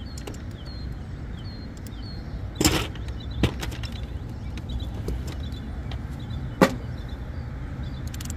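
Three sharp knocks and clicks from hands working at a rooftop AC condensing unit: one about a third of the way in, a lighter one just after, and a sharp click near three-quarters through. They sit over a steady low rumble, with faint bird chirps.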